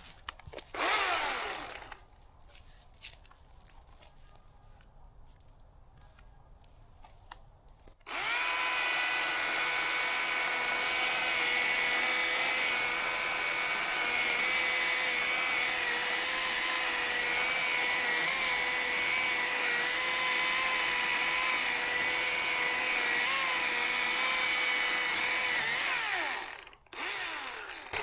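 Husqvarna chainsaw running at a steady high speed for about eighteen seconds, its pitch wavering slightly, then winding down and stopping near the end. A short loud rasp comes about a second in, before the saw runs.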